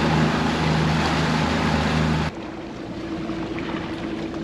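Outboard motor of a small fishing boat running under way, a steady drone mixed with rushing water and wind. A little over two seconds in it cuts off abruptly to a much quieter, steady hum.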